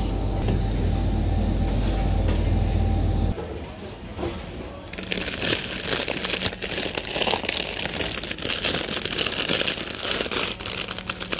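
Plastic potato chip bags crinkling and rustling as a hand grabs and pulls them off a shelf, a dense crackling that starts about five seconds in. Before that, a steady low hum stops abruptly about three seconds in.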